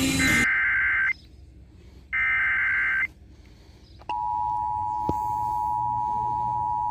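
Emergency Alert System tones over the radio: two SAME header data bursts, each about a second long with a second's gap, then about four seconds in the steady two-tone EAS attention signal starts. This is the sign that a station is relaying a severe thunderstorm warning.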